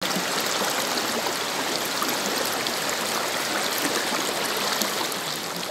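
A fast, shallow river rushing over rocks, heard right at the water's surface: a steady rush of water with small splashes crackling through it.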